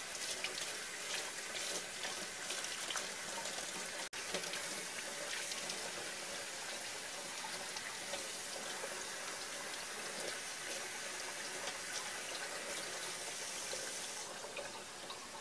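Tap water running steadily and splashing onto a wooden cutting board and a halfbeak, as a cotton-gloved hand rubs the fish clean under the stream. The sound cuts out for an instant about four seconds in and thins a little near the end.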